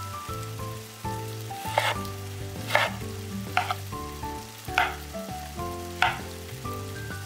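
Chef's knife cutting through avocado and knocking on a wooden cutting board, five cuts about a second apart, over background music.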